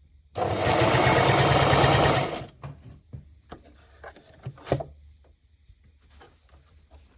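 Singer Heavy Duty 4411 mechanical sewing machine running at speed for about two seconds, then stopping. A scatter of sharp clicks and knocks follows, the loudest a little before the five-second mark.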